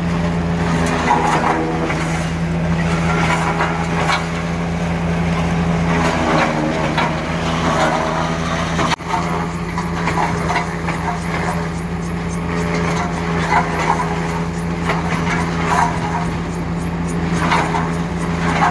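Silage harvester running steadily: a constant engine drone with a strong low hum, some irregular crackling over it, and a brief break about halfway through.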